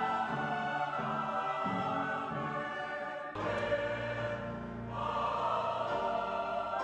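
Large church choir singing, with instrumental accompaniment. The sound changes abruptly a little over three seconds in, where one recording cuts to another with a fuller low end.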